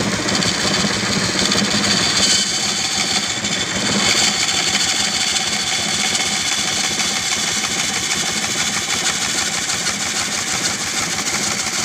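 Homemade wooden-framed bandsaw running steadily, its blade cutting a curve through a wooden board.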